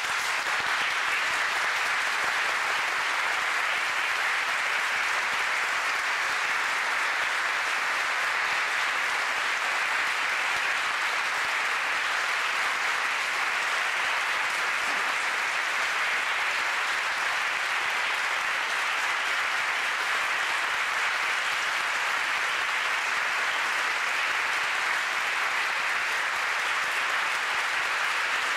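Large audience applauding, a dense, steady clapping that holds at an even level.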